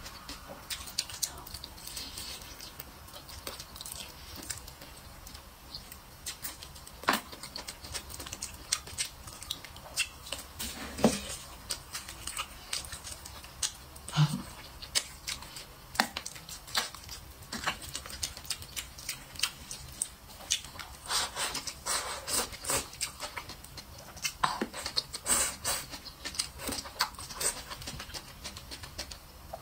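A person eating glazed chicken: wet chewing and lip smacks, a steady stream of irregular sharp clicks that grows denser in the last third.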